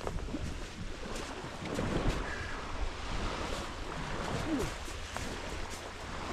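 Shallow water running down a narrow hand-dug trench in a sand bar into Lake Superior, with small waves washing on the shore. Wind buffets the microphone throughout.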